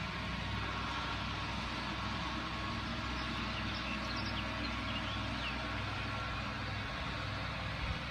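A steady low engine-like hum, even in level throughout, with a few faint high chirps about four to five seconds in.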